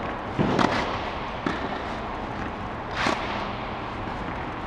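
Tennis balls struck by rackets in a baseline rally: a sharp double pop of bounce and hit about half a second in, a softer knock about a second later, and another sharp hit about three seconds in, over steady background noise.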